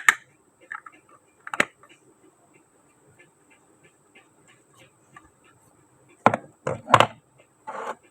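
Small plastic toy kitchen pieces clicking and tapping as they are handled, a single click early and a quick run of louder knocks near the end.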